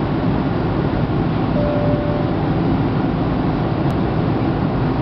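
Steady cabin noise of a Boeing 757-200 in flight: engine and airflow noise as an even, low-weighted rumble, with a short single tone about a second and a half in.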